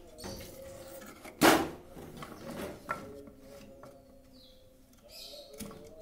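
Hands working on a bird cage with thin bars and a wooden frame: light rattling and clicking of the bars, with one sharp knock about a second and a half in and a smaller click a little later.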